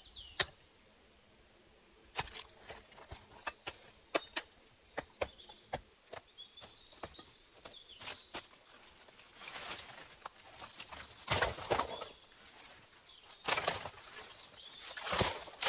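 Irregular sharp knocks and clicks from handwork, with a few louder rustling swishes in the second half, over faint chirping of small birds.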